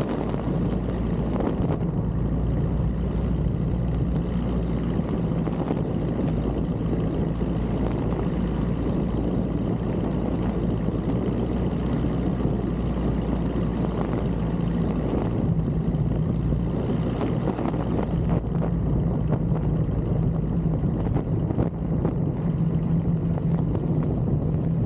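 Piper J3 Cub's engine and propeller droning steadily, an even low hum with no change in pitch.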